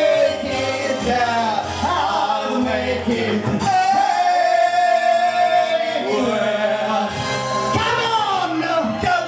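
Live band music with a singer, a long held sung note in the middle.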